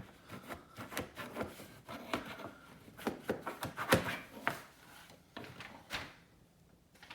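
Handling noises of grasscloth wallpaper being worked onto a wall: rubbing and scraping with light knocks, one sharper knock about four seconds in.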